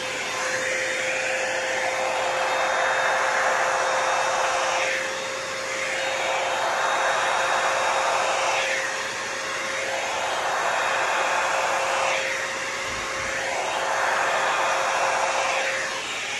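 Small handheld hair dryer running steadily, held close over wet pour paint: a constant motor whine under the rush of air. The air noise fades and comes back three times.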